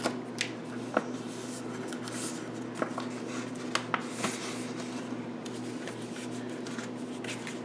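Card stock and paper being handled: soft rustles and a few light clicks and taps as the backing strip is peeled off double-sided tape and the card is lined up. A steady low hum runs underneath.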